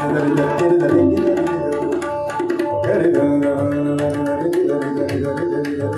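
Live Indian classical music: tabla played in rapid strokes under a sitar melody, with a male voice singing gliding phrases into a microphone.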